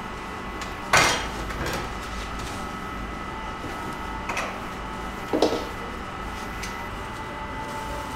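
Kitchen clatter: a few sharp knocks and clinks of items handled on a stainless-steel work surface, the loudest about a second in and smaller ones around four and five seconds. Under them runs a steady background hum with faint constant tones.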